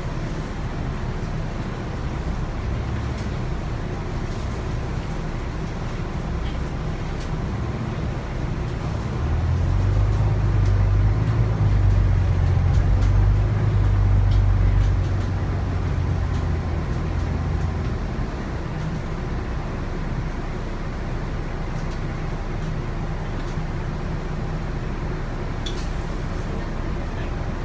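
Volvo B9TL double-decker bus's diesel engine heard from inside the lower deck: a steady low drone that grows louder for several seconds in the middle, from about 9 to 18 seconds in, then drops back.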